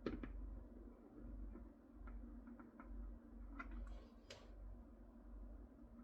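Scattered light clicks and taps, with a sharp click at the start and a small cluster of louder clicks past the middle, over a low steady hum.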